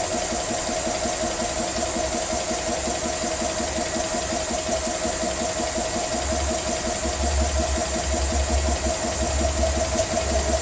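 GX CS3 portable PCP high-pressure air compressor running steadily with a regular pumping pulse, filling at about 1,700 psi, where the fill has become slow. A deeper hum comes in more strongly a little past the middle.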